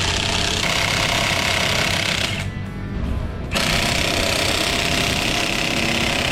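Impact wrench hammering in two long runs with a short pause about two and a half seconds in, over background music.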